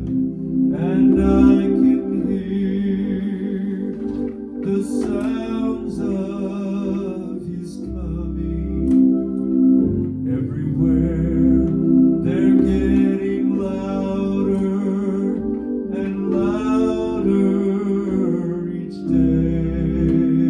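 Hammond organ playing a slow gospel hymn: sustained chords underneath a wavering melody line that comes in phrases of a few seconds.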